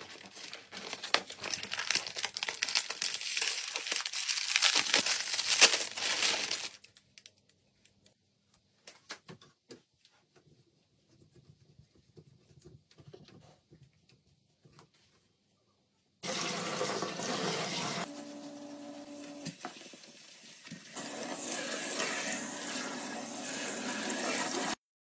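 Paper packaging rustling and tearing for the first several seconds, then faint clicks while a faucet extender is fitted to a kitchen tap. From about two-thirds of the way in, tap water sprays from the extender into a stainless steel sink, its sound changing twice.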